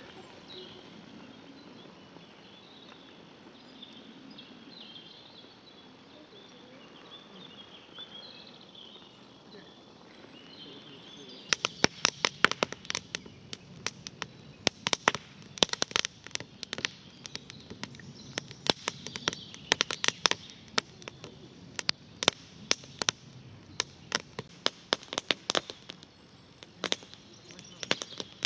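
Quiet outdoor background with faint bird chirps, then from about eleven seconds in a long run of sharp, irregular snapping and crackling clicks.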